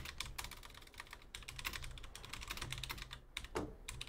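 Computer keyboard being typed on in quick, uneven runs of keystrokes, with a couple of brief pauses: a card hit being entered into a spreadsheet.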